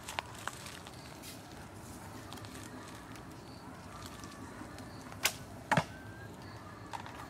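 A shot from a Grozer Roman recurve bow. A few light clicks come near the start as the arrow is handled and nocked. After the draw, the bowstring is loosed with a sharp crack, followed about half a second later by a heavier double thump, the loudest sound.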